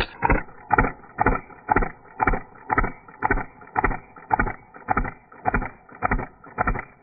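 A Novritsch SSP-18 gas blowback airsoft pistol firing single shots at a steady pace, about two a second: some thirteen sharp cracks, each with a short ringing tail.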